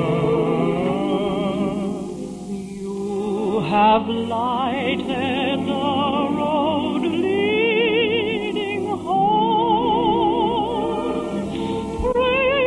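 Operatic singing with wide vibrato, a high voice holding long notes over an orchestral accompaniment, on an early-1950s radio broadcast recording.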